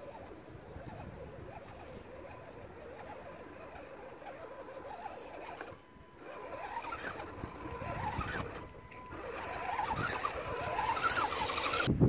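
Electric motor and drivetrain gears of a 1/10-scale RC rock crawler whining as it climbs, the pitch rising and falling with the throttle. It grows louder in the second half.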